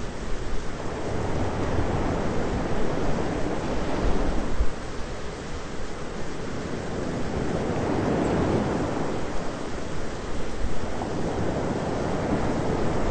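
Thunderstorm ambience: a steady rushing noise with a low rumble underneath, swelling and easing in slow waves every few seconds.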